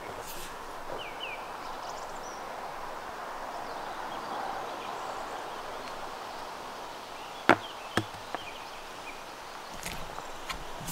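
Outdoor ambience: a steady noise like wind, with two faint short chirps about a second in and two sharp knocks half a second apart in the second half.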